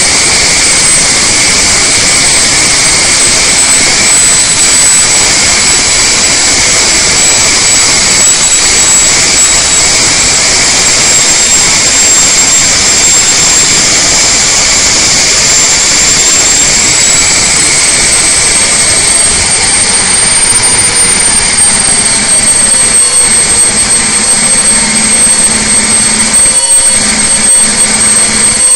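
Detroit Diesel Series 60 inline-six diesel running hard under load on an engine dynamometer, a loud steady roar with a high whine on top. About two-thirds of the way through, the whine rises slightly in pitch as the engine speeds up and the load eases.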